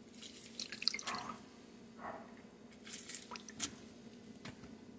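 A lemon half squeezed by hand, with wet squelches from the rind and juice dripping into a glass bowl, in two short spells, about a second in and again about three seconds in.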